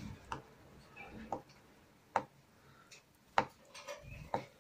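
Kitchen knife chopping a hard-boiled egg finely on a plastic cutting board: sharp taps of the blade against the board at uneven intervals, about one a second, with a few fainter ones between.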